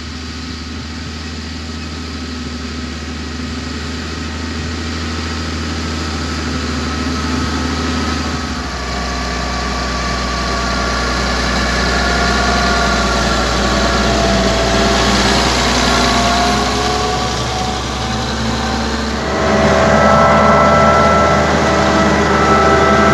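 Fortschritt ZT 303 tractor's four-cylinder diesel engine working under load while pulling a five-furrow plough, growing steadily louder as the tractor comes closer. Near the end it is heard from inside the cab, louder and with a whining tone.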